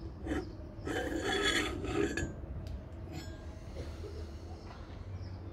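Handmade 316 stainless steel boat rod holder being turned and slid out of its swivel mount: metal rubbing and scraping for about a second and a half, starting about a second in, with a couple of light clicks before and after.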